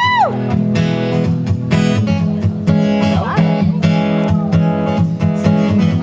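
Acoustic guitar strummed through a stage PA, full chords in a steady strumming rhythm. A brief high whoop rises and falls from the audience at the very start.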